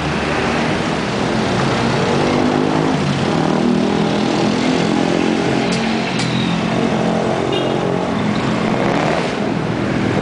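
Engine of a moving motor vehicle, heard from on board, its pitch rising and falling as it speeds up and eases off, over a steady rush of road and wind noise. A couple of sharp clicks about six seconds in.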